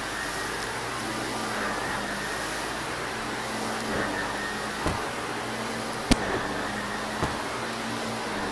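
Shark vacuum cleaner running steadily as it is pushed over carpet, a constant motor hum and suction rush, with a few sharp clicks, the loudest about six seconds in.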